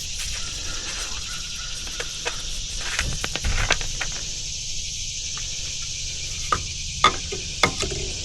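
A steady, high-pitched insect chorus, with a few scattered clicks and knocks from something being handled.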